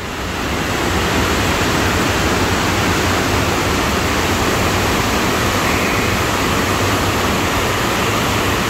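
A loud, steady rushing noise that swells up over the first second and then holds even.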